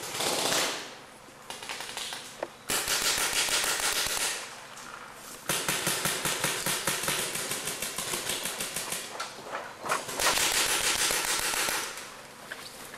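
Paintball markers firing rapid strings of shots in several long bursts, with brief lulls between.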